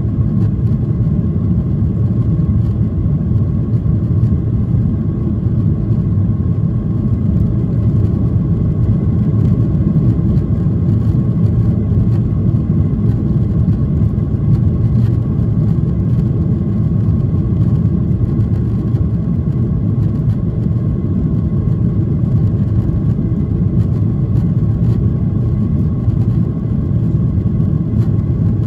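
Cabin noise of a Boeing 737-800 in flight, heard inside the cabin from a window seat by the wing: the steady deep rumble of its CFM56-7B turbofan engines and rushing air, with a faint steady whine over it.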